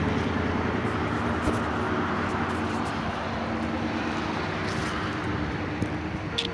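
A song playing in the background with long held notes, over steady outdoor traffic noise.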